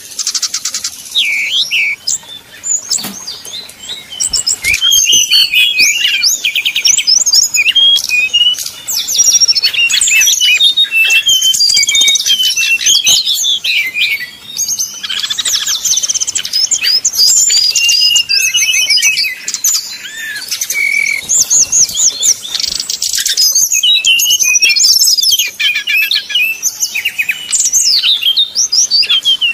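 Brown-chested jungle flycatchers (sikatan rimba dada coklat) singing a fighting song. It is a dense, unbroken stream of high chirps, whistles and quick buzzy trills.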